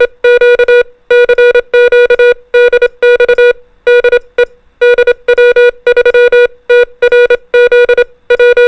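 Morse code (CW) tone sent quickly in dots and dashes: one buzzy electronic pitch keyed in about a dozen short characters, with brief gaps between them.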